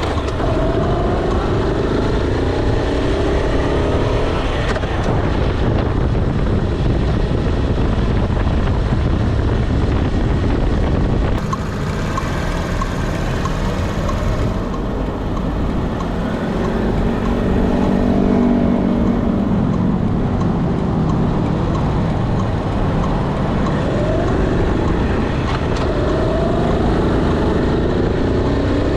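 Honda Super Cub 90 on the move, its small single-cylinder four-stroke engine running through a stock exhaust, the engine note rising and falling with the throttle several times over a steady rush of riding wind.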